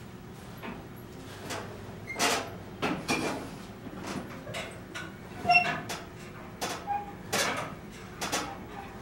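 Cables and pulleys of a power-rod home gym in use: irregular short sliding and rubbing strokes, some with a brief squeak, getting more frequent after about two seconds.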